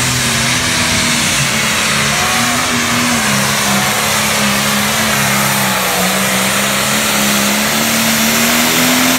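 Light pro stock pulling tractor's turbocharged diesel engine at full throttle down the track. The pitch sags through the middle as it bogs under the sled's load, climbs back, and drops suddenly as the throttle is cut at the end.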